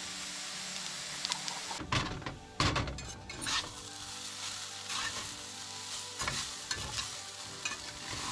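Food sizzling in a frying pan, with a utensil clattering and scraping against the pan from about two seconds in.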